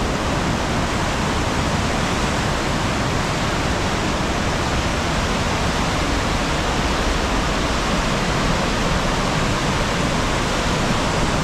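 Loud, steady rush of river water pouring over a concrete weir spillway and churning through the rocky rapids below it.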